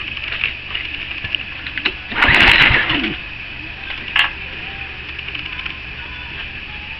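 Honda GCV135 single-cylinder four-stroke engine running steadily, with one loud rasping burst about two seconds in.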